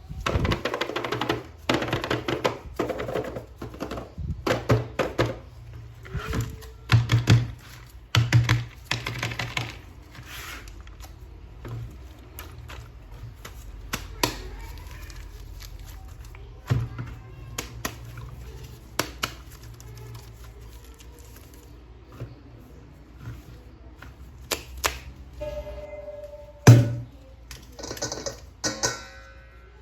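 A run of sharp clicks, taps and knocks, close together for the first ten seconds or so, then sparser, with one louder knock near the end: hard plastic toy figures and parts being handled. Background music plays underneath.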